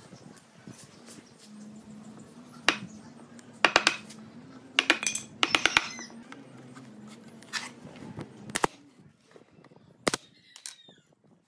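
Woodworking sounds: sharp knocks and clicks on wood, some single and some in quick clusters of several hits, then one sharp shot from a pneumatic brad nailer driving a fastener about ten seconds in. A steady low hum runs underneath.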